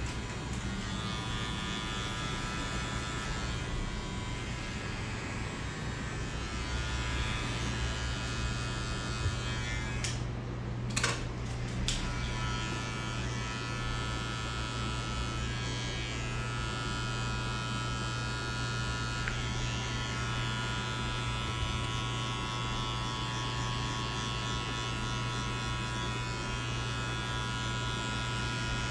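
Electric hair clippers buzzing steadily while cutting a fade, with a few sharp clicks about ten to twelve seconds in.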